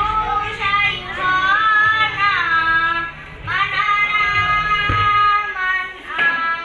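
A young boy singing solo into a handheld microphone, in long held notes that bend and waver in pitch. The phrases break briefly about three seconds in and again near six seconds. A brief knock sounds just before five seconds.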